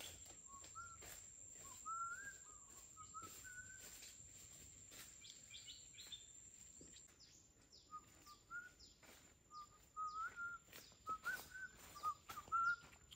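A bird calling in short, wavering whistled notes, several a second, in two runs. Under it are faint crackles of steps in dry leaves and a steady thin high tone.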